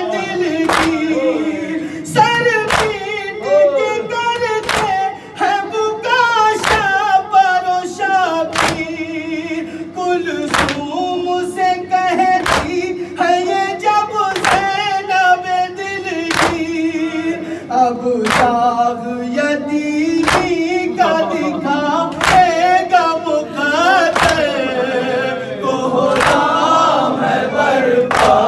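A noha for Imam Ali chanted by a male reciter, with a group of mourners singing along. Open-hand chest-beating (matam) keeps a steady beat of slaps about once a second, the heavier slap falling on every second beat.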